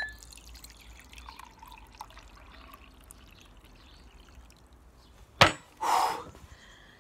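Coloured water poured from a glass jug into a ceramic mug, a faint steady trickle. About five and a half seconds in, a sharp knock as the glass jug is set down on the table, then a short blown-out breath.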